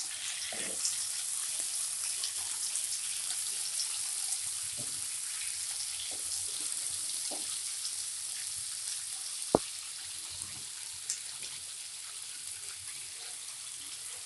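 Chopped onions and tomatoes sizzling in oil in a pan as they sauté: a steady hiss with small crackles. A single sharp click sounds a little past halfway.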